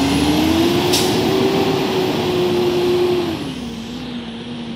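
Automated side-loader garbage truck's engine pulling away. Its pitch rises and holds, then drops back about three seconds in, with a faint high whine above it.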